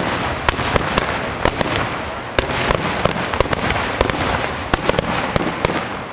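Fireworks display: a continuous rumble of bursts with many sharp bangs and crackles, several a second.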